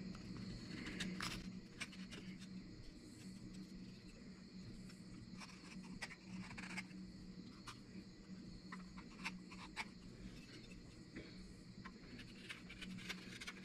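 Faint, scattered short scraping cuts of a carving knife shaving the top edge of a cherry wood spoon, with one longer stroke about halfway through, over a steady low hum.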